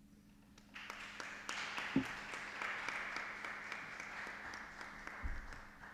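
Audience applauding, starting about a second in and thinning out toward the end, with one dull thump about two seconds in.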